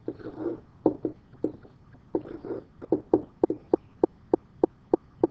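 A stylus or pen tapping and stroking on a hard drawing surface as small smiley faces are sketched: a string of short sharp clicks, coming faster, about three a second, in the second half, between a few brief scratchy strokes.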